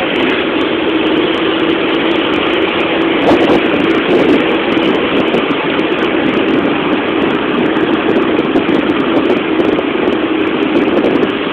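Engine and road noise of a moving vehicle heard from inside it, a steady drone.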